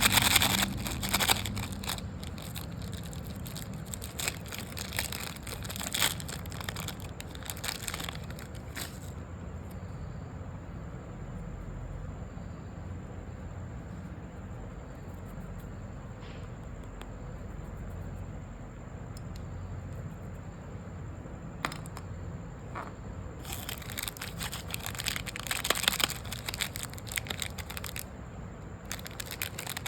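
Crisp crunching and crinkling of snacks and their wrappers: dense crackling for the first nine seconds or so, a quieter stretch with only scattered clicks, then dense crackling again from about twenty-three seconds until shortly before the end.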